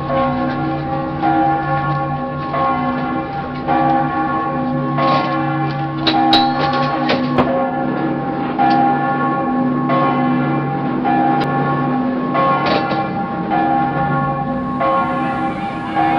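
Several bells ringing in turn, a new strike about every second and a quarter, each one ringing on under the next. A few faint sharp clicks fall in the middle.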